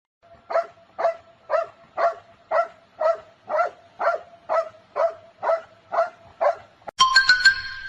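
A dog barking over and over at an even pace, about two short barks a second, thirteen in all. Near the end, a louder sound made of several steady tones cuts in abruptly.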